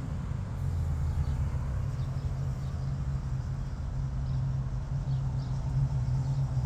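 Steady low rumble of an idling vehicle engine, with a few faint high chirps of birds.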